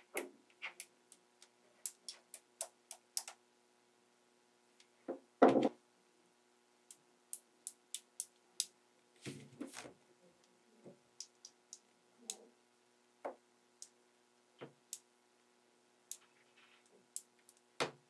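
Small magnetic balls clicking as they snap onto one another, in scattered sharp ticks at an irregular pace, with a louder clattering cluster about five seconds in and another near the middle.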